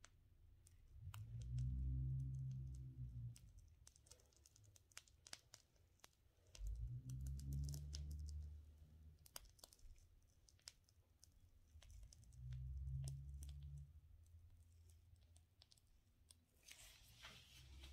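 Plastic piping bag crinkling and clicking softly as it is squeezed to pipe buttercream, with a denser crinkle near the end. Three low, muffled rumbles a few seconds apart are the loudest sounds.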